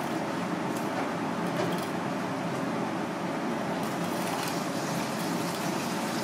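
Steady mechanical background hum with a faint steady tone, and a few faint clicks from a knife working along the fish's skin and backbone as a fillet is cut.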